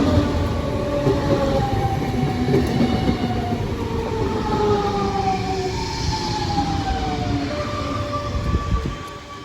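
Regional train pulling into a station and slowing down, its running noise overlaid with several whining, squealing tones that fall steadily in pitch as it brakes; the noise drops off near the end.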